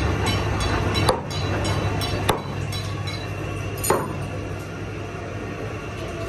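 Heavy butcher's cleaver chopping through mutton ribs on a wooden chopping block: three sharp chops spread over about three seconds, the second the loudest. A steady low hum runs underneath.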